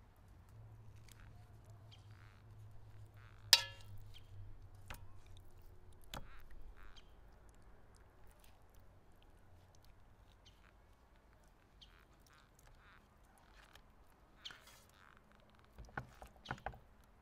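Marinated fish pieces being pushed onto a metal skewer by hand: quiet wet squelches and small clicks, with one sharp metallic clink about three and a half seconds in and a few more clicks near the end.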